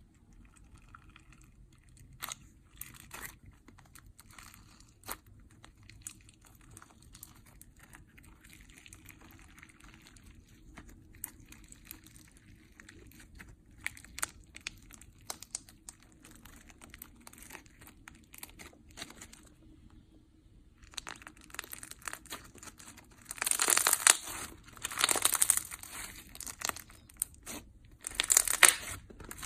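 Slime full of styrofoam beads being squeezed and worked by hand, crackling and crunching. Sparse small clicks at first, then from about two-thirds of the way through a run of loud crunchy bursts, a few seconds apart.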